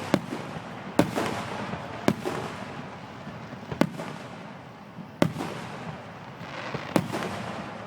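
Aerial fireworks going off: about six sharp booms a second or two apart, each followed by a crackling, rumbling tail as the shells burst.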